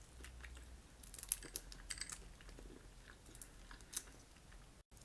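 Boiled crawfish shells cracking and crackling as they are peeled apart by hand, in scattered sharp clicks, the sharpest about a second in and again near the end, with some chewing.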